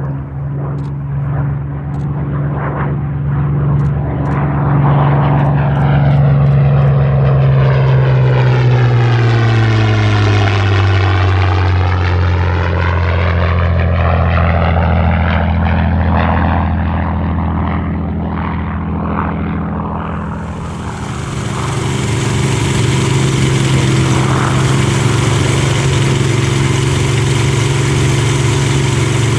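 Supermarine Spitfire's Rolls-Royce Merlin V12 engine flying past, its drone dropping in pitch as it goes by. About two-thirds of the way through, the sound switches abruptly to a brighter, steady engine drone.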